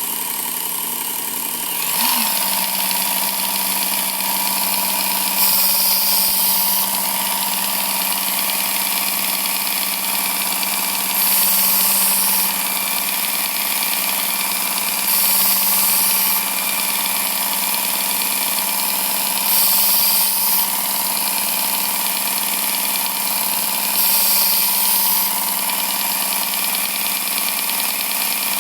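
Work Sharp Ken Onion Elite belt sharpener with the blade grinding attachment running with a steady motor hum, picking up about two seconds in. A knife blade is drawn across the moving abrasive belt in passes every four to five seconds, each adding a brief grinding hiss.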